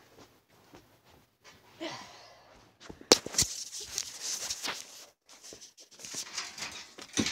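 Handling noise of a phone picked up after being dropped: its microphone is rubbed and bumped, with a sharp knock about three seconds in, then rustling and small taps, and another knock near the end.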